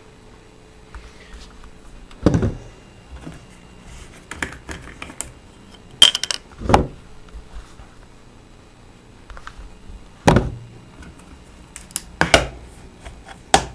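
Irregular knocks, clicks and rustles of handling close to the microphone, with a few louder thumps a couple of seconds apart.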